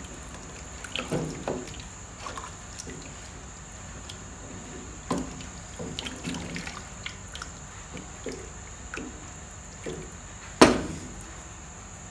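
Spoon stirring thick melon-seed soup in a pot: wet sloshing and scraping with scattered clicks, and one sharp knock near the end, the loudest sound.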